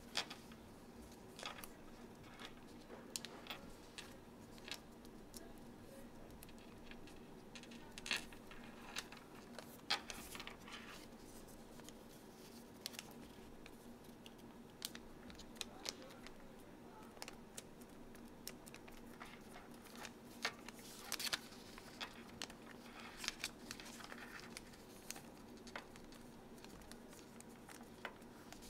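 Green origami paper being folded by hand: soft rustling and crisp creasing clicks in short, scattered bursts, with a few sharper snaps, over a faint steady hum.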